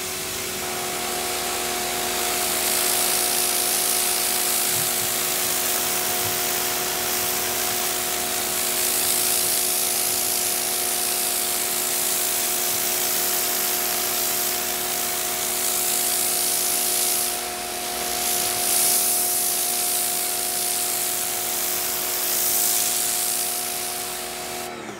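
Sun Joe SPX2688-MAX electric pressure washer running and spraying through a lance: a steady motor-pump whine under the loud hiss of the water jet, cutting off just before the end.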